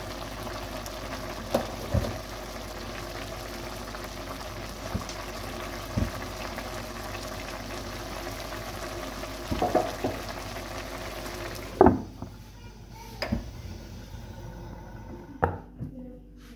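Food cooking on the stove: a steady hiss, with a few sharp knocks of a utensil against the pan. About twelve seconds in the hiss stops, leaving only a couple of knocks.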